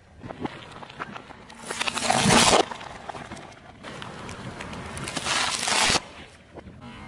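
A car tyre rolling over and crushing small objects: first a foam toy figure, then a plastic-wrapped tray of jelly candies. Two loud noisy crushes, one about two seconds in and one building up near the end, each cutting off suddenly.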